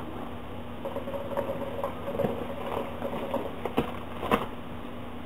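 Water in the base of a Khalil Mamoon hookah bubbling in a steady crackly patter as smoke is drawn through the hose, with two short clicks near the end.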